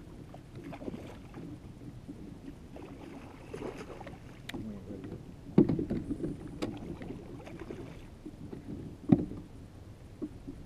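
Speckled trout splashing and thrashing at the surface beside a kayak as it is played in on a rod, with scattered knocks against the hull. Two sharp thumps, the loudest sounds, come about halfway through and again near the end.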